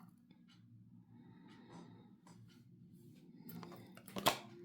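Faint rustling and small clicks of oracle cards being handled and slid through the hands, with one sharper card tap near the end.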